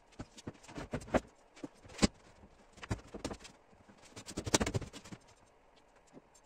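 Irregular knocks, taps and rubbing as a leather-upholstered recliner armchair is handled and shifted on a wooden workbench. There is a sharp knock about two seconds in and a denser run of knocks and scraping about four and a half seconds in.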